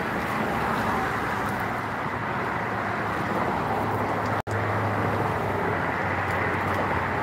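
Steady road noise of traffic on the highway bridge alongside, a continuous rushing with a low hum. The sound cuts out for an instant about four and a half seconds in.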